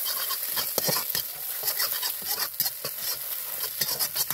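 Metal spatula scraping and clicking against a metal pan as egg is scrambled in hot oil. The oil sizzles steadily underneath.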